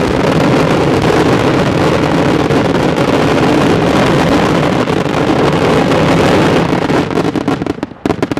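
Daytime fireworks barrage: firecracker bangs so close together that they merge into one loud, continuous roar, thinning into separate bangs near the end.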